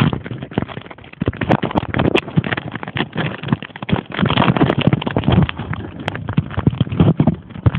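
Handling noise right on a phone's microphone: crackling, rubbing and knocking as the phone is held and moved against clothing.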